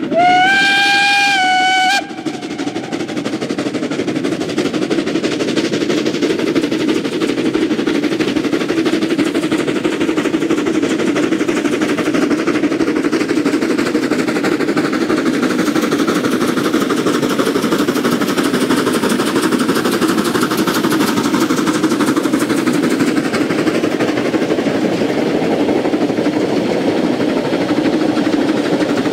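Steam locomotive whistle sounding one blast of about two seconds that rises slightly in pitch, holds and cuts off sharply. Then the locomotive's exhaust chuffs in a rapid, steady stream as it works hard hauling a freight train.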